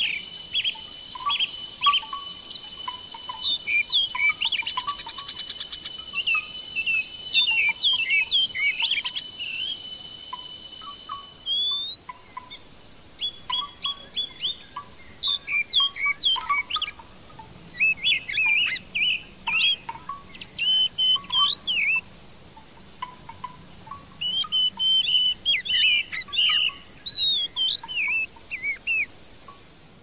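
Several birds singing and chirping in quick, short whistled notes throughout. Under them runs a steady high whine that jumps higher in pitch about a third of the way through.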